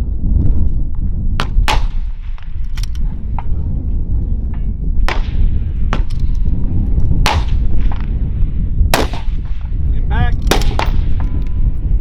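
Rifle shots at a precision rifle match: several sharp cracks, one to two seconds apart, over a constant low rumble.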